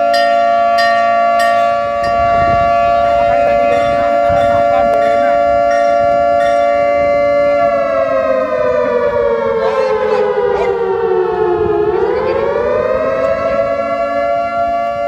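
Alarm siren sounding the alarm stelling, the call for police to assemble against an attack on their headquarters. It holds one steady pitch, sags lower over about four seconds past the middle, then rises back and holds. A few sharp knocks are heard in the first second or so.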